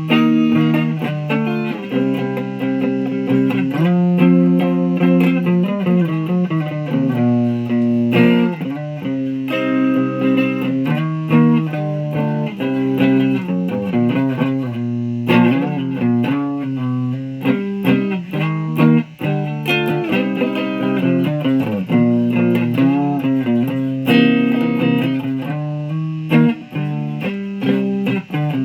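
Electric guitar being played continuously, single notes and chords with string bends that glide in pitch.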